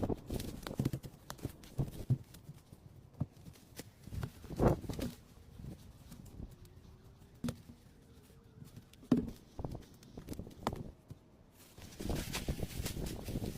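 Irregular knocks and clicks of handling, with two heavier thumps about four and a half and nine seconds in, and a denser rustling stretch near the end.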